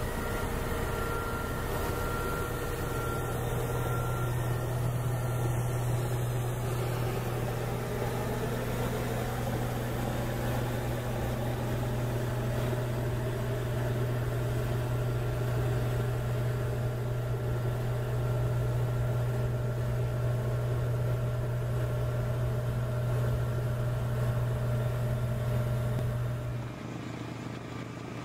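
Heavy truck-type rotary snow blower running steadily under load, a constant low engine drone with a few fixed higher tones. Near the end the drone cuts off and a quieter sound takes its place.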